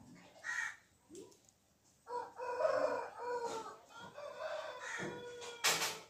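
A rooster crowing: one long drawn-out crow of about three seconds, starting about two seconds in. A short loud burst of noise follows just before the end.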